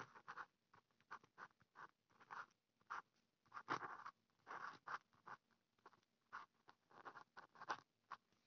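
Faint writing strokes of a stylus on a tablet screen: a run of short, soft scratches, one or two a second.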